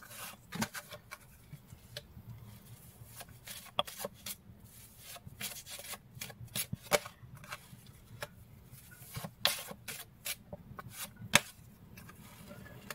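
A deck of tarot cards shuffled by hand, soft irregular riffling snaps and rubbing, with cards drawn from the deck and laid down.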